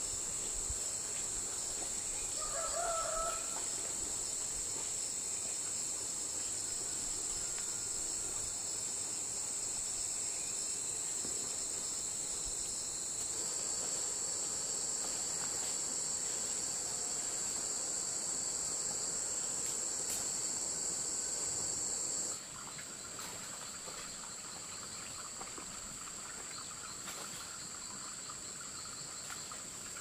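Steady high-pitched chorus of insects, with a brief chicken call about three seconds in; the chorus drops in level about twenty-two seconds in.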